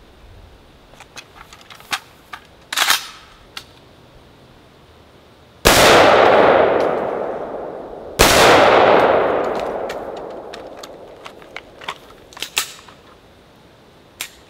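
Two rifle shots from a Ruger Mini 14 in .223/5.56, about two and a half seconds apart. Each blast rolls away and fades over a couple of seconds. Lighter clicks and knocks of the rifle and gear being handled come before and after the shots.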